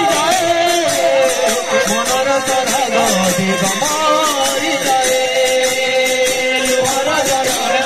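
Odia folk kirtan music: two-headed barrel drums and large brass hand cymbals played in a steady, driving rhythm, with a held melody line over them.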